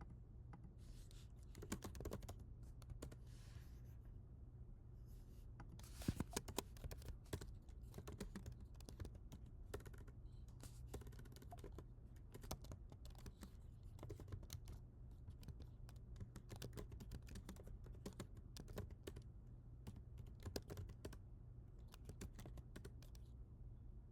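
Typing on a computer keyboard: quick, irregular keystrokes in flurries and pauses, with a steady low hum underneath.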